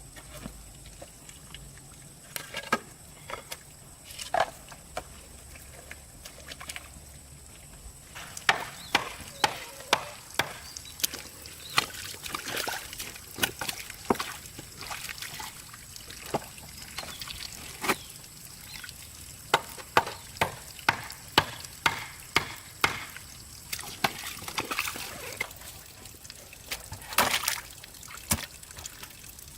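A series of sharp knocks or chopping strikes, irregular, often coming in quick runs of several about two a second, over a faint steady hiss.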